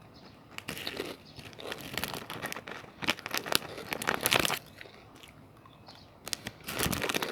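Someone eating a crunchy puffed ciki snack: spells of crunching and chewing, with some crinkling of the plastic snack packet, in three bouts, around one second in, from about two to four and a half seconds, and near the end.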